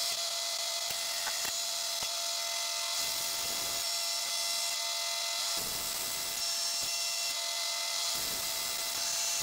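CNC milling machine's end mill cutting a metal plate: a steady, high-pitched cutting hiss over several constant tones, with a little more low rumble from about halfway through.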